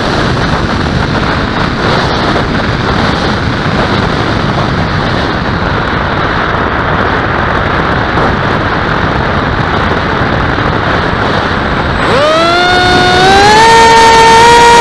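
Airflow rushing over a model aircraft's onboard camera while it glides with no motor tone, then about twelve seconds in the model's motor throttles up into a steady high whine that climbs in pitch in two steps.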